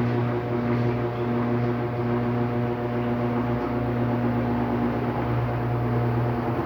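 Electrolux LTD13 13 kg washing machine spinning during its second rinse: a steady motor hum that holds one pitch.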